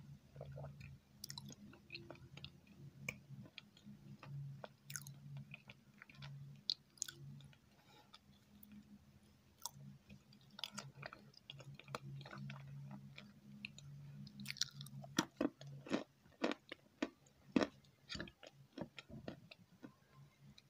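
Close-miked chewing of dessert: a run of wet mouth clicks and smacks, with louder clicks near the end, over a faint low hum.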